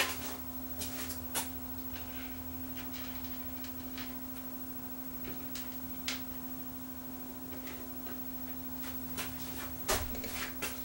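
Occasional light clicks and taps from hands handling the parts of an opened CD changer and tools on a workbench, over a steady low hum. The clicks come in a cluster at the start and again about ten seconds in.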